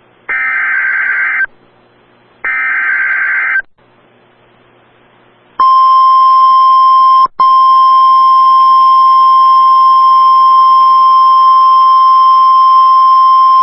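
Emergency Alert System tones: two data-burst header screeches of about a second each, a second apart, which encode the alert. After a short pause comes the weather radio's steady 1050 Hz warning alarm tone, loud and unbroken except for a brief drop about a second after it starts.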